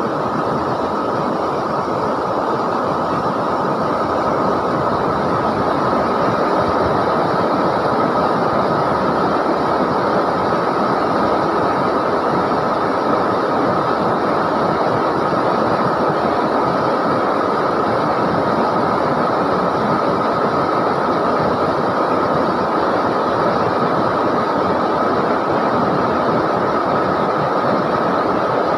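River water rushing and churning steadily, a loud continuous roar without let-up.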